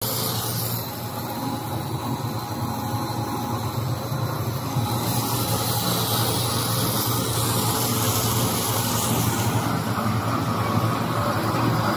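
Core-filled pet food extrusion line running: a steady motor hum under a continuous hiss.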